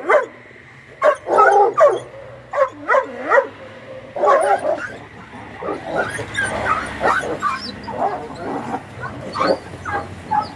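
Dogs fighting: separate bursts of loud barking in the first half, then denser, almost continuous barking with a few short high yelps in the second half.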